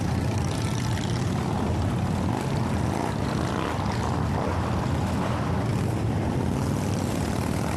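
A convoy of cruiser motorcycles riding slowly past one after another, their engines running in a steady low drone.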